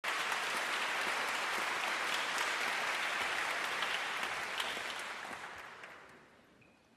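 Concert-hall audience applauding the conductor as he bows. The clapping holds steady for about four seconds, then dies away over the last two.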